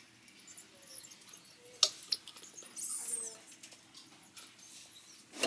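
Glass jar candle with a metal lid being handled, with a sharp click about two seconds in and a smaller click just after, then a brief hiss.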